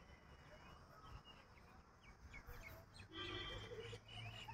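Near silence: faint outdoor ambience with a low hum and scattered small bird chirps, and a slightly louder call about three seconds in.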